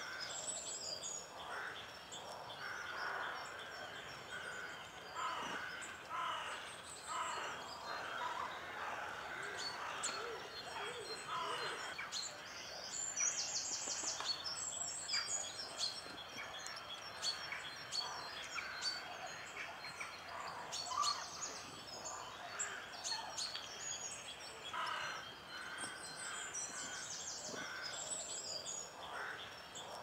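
European robins and other small woodland birds singing, with overlapping phrases of high, rapid trills and lower repeated whistled notes.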